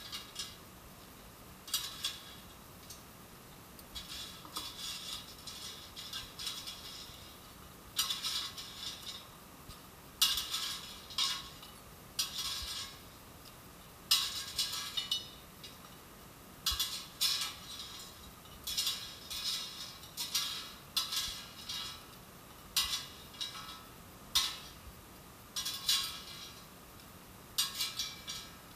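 Metal wire tongs clinking and scraping against an air fryer's non-stick basket and a plate as french fries are lifted out, in irregular clattering bursts with short pauses between them.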